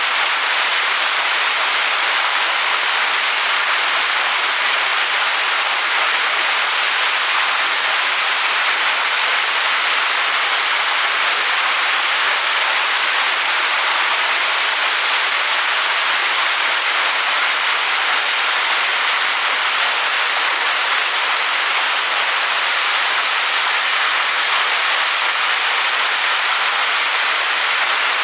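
Waterfall splashing onto stones, a steady hiss of falling water.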